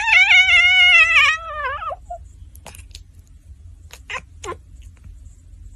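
A cat gives one long, loud meow that slides down in pitch and ends about two seconds in, followed by a few short, softer sounds.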